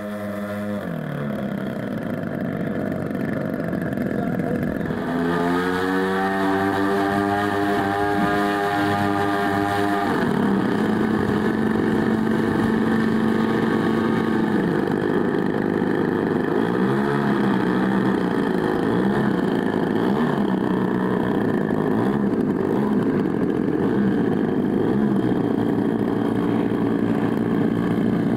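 Engines of large radio-controlled model warbirds, a twin-engined Heinkel He 111 and Ju 87 Stukas, running on the ground. They rev up about five seconds in, hold for a few seconds, drop back to a steady idle, and blip briefly several times later on.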